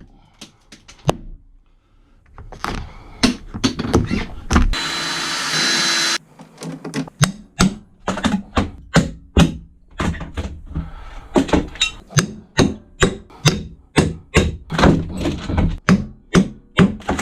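Hand demolition in a small boat cabin: repeated knocks and thuds of striking and prying at old fittings and panels, with a short burst of a small power tool about five seconds in, then a steady run of knocks about two a second.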